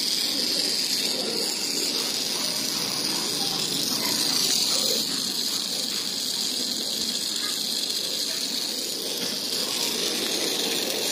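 Small solar-powered toy DC motor and its clear plastic gearbox running in sunlight, a steady high whirring hiss.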